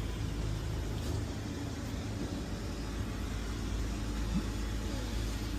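A steady low engine drone, without a break.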